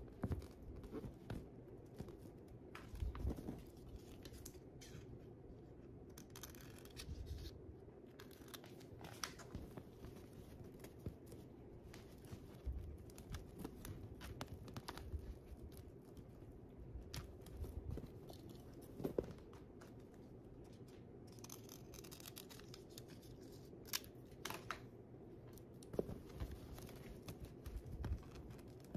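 Dried pampas grass stems rustling and a clear plastic bubble balloon being handled, with scattered small clicks and scrapes.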